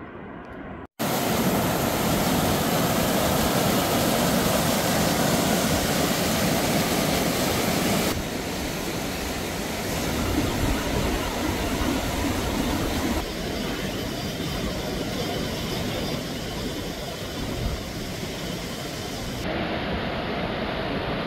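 Rushing mountain river or cascade: a loud, steady roar of water. It cuts out briefly about a second in and changes level abruptly a few times.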